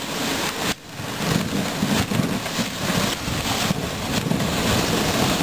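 Dog sled heavily loaded with birch logs running over a snow trail: a continuous rumbling, scraping noise from the runners and the jolting sled, with many small knocks and clatters, starting in earnest about a second in.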